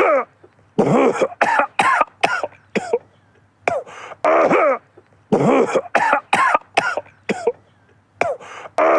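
A man coughing repeatedly, in fits of several short coughs in quick succession with brief pauses between the fits.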